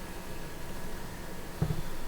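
Hands working on a resin printer's parts, with a single low thump of handling about one and a half seconds in, over a steady background hiss and faint hum.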